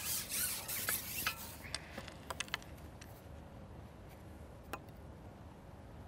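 Handling noise from a carbon fishing pole being shipped back and worked by hand: a rustling, rubbing stretch in the first second and a half, then a few light clicks, over faint steady background.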